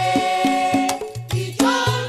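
Traditional devotional chant with drums: a voice holds one long note over steady, pitched hand-drum strokes, breaks off about halfway through, and a new sung phrase begins near the end.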